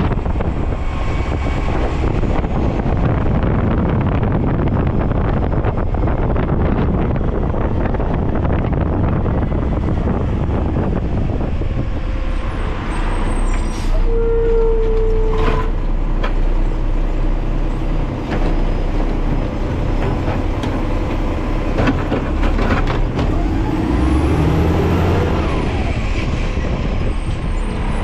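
Garbage truck's engine running as the truck drives, a steady rumble with a rise and fall in pitch about three-quarters of the way through. A short steady tone sounds for about a second and a half about halfway through.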